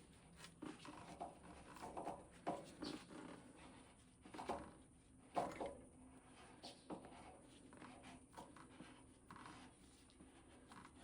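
Faint, irregular taps and scrapes as a PVC fitting coated with plumber's putty is worked onto pipe threads by hand, struggling to start straight.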